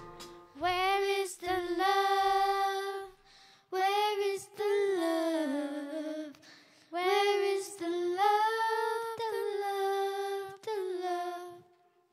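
A young girl's voice singing solo and unaccompanied, a cappella: a few long, held phrases that slide between notes, with short breaths between them and no instruments.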